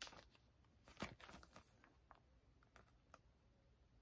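Faint rustling and crinkling of a clear plastic sheet protector with a photo print inside as it is handled and turned over, with a few soft ticks; the loudest rustle comes about a second in.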